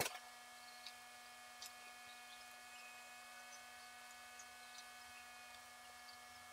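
Near silence: a steady, faint electrical hum of several fixed tones, with one sharp click right at the start and a few faint ticks afterwards.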